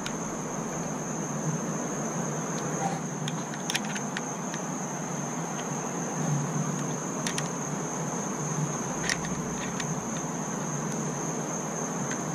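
Steady high trilling of an insect chorus, crickets, with a few light metal clicks of an Allen wrench on the awning motor's mounting bolts.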